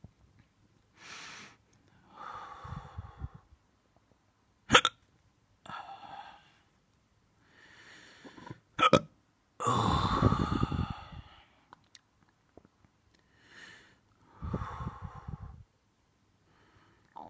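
A person hiccuping repeatedly, with breathy voiced sounds between the hiccups. The two sharpest, loudest hiccups come about five and nine seconds in.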